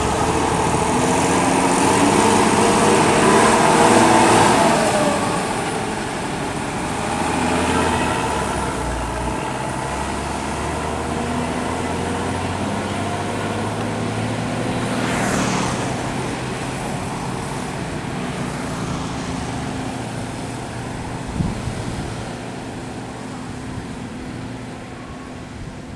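Mercedes-Benz intercity bus's diesel engine pulling away hard, its note climbing and dropping back as it changes gear, then fading as the bus drives off. A passing vehicle sweeps by about fifteen seconds in.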